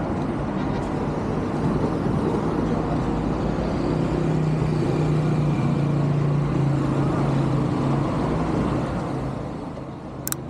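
Street traffic: a steady din of passing cars and motorcycles, with one vehicle's engine hum swelling in the middle and the noise easing off near the end. Just before the end, a single sharp click.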